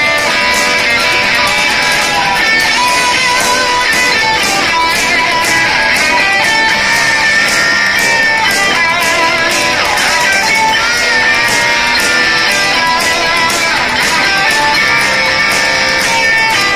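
Live rock band playing loud: electric guitars and bass over drums, with a steady beat of cymbal strikes.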